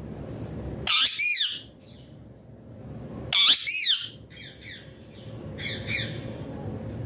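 Parrot giving loud, harsh squawking calls: one about a second in and a louder one about three and a half seconds in, each rising then falling in pitch, followed by short, quick chattering calls near the fifth and sixth seconds. A steady low rumble sits underneath.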